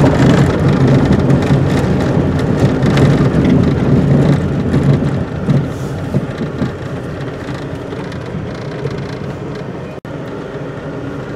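Car driving slowly on a rough dirt road, heard from inside the cabin: a steady engine and tyre rumble with a few bumps and knocks. It runs louder for the first half, then settles lower after about five seconds.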